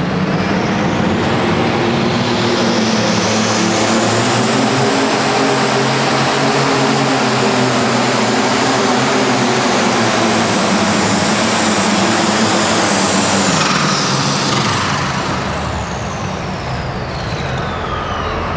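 Turbocharged super stock pulling tractor engine running flat out under load down the track; about fifteen seconds in the throttle comes off, the engine drops away and a whistle falls steadily in pitch as the turbo spools down at the end of the pull.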